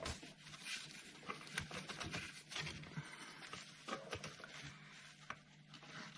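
Faint, irregular clicks and taps of a quarter-inch ratchet and extension working a starter motor mounting bolt.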